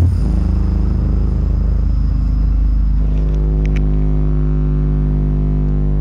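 A long, steady, deep bass note from a bass-heavy music track played loud through a large woofer, driven by a home-built amplifier with a bass–treble tone-control board. The sound is almost all bass, with very little treble.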